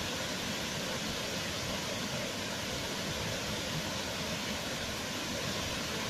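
Wide curtain waterfall in heavy, muddy flow: a steady, even rush of falling water.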